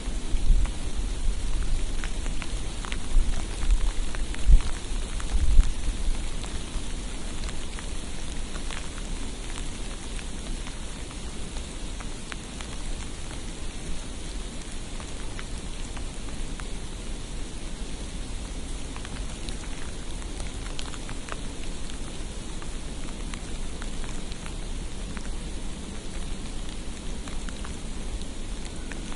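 Steady hiss of falling precipitation, with scattered light ticks like drops pattering on surfaces. A few low rumbling swells come in the first six seconds, then the sound settles into an even bed.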